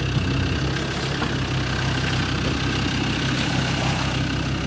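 Four-wheel-drive vehicle's engine idling steadily.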